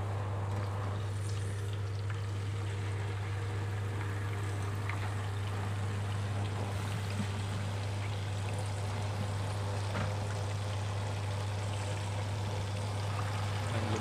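Whole chicken deep-frying in hot oil in a caldero pot, a steady sizzling and bubbling, over a steady low hum.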